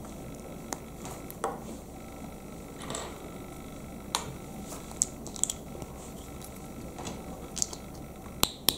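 LEGO plastic bricks clicking and tapping as they are pressed together by hand to build a chess piece: irregular sharp snaps, the two loudest close together near the end.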